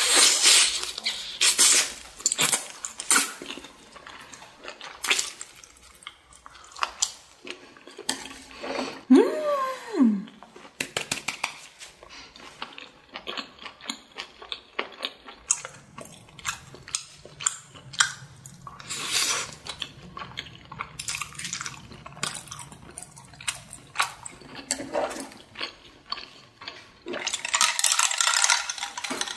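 Close-up eating sounds: wet chewing and smacking of flat glass noodles, with many small sticky clicks. About nine seconds in there is a short falling hum from the eater's voice, and near the end a louder rushing, sloshing stretch as a glass of cola is handled.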